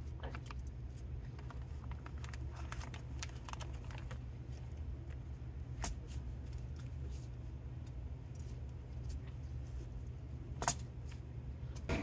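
Light metallic clicks and rattles as gloved hands slide and adjust a metal rail mounting frame over a ceiling opening, with one louder click near the end, over a steady low hum.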